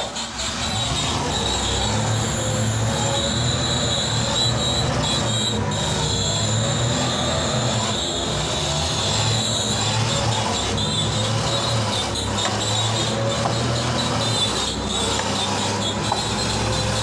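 Small DC gear motors of a homemade RC truck whining steadily as it drives and turns on a concrete floor.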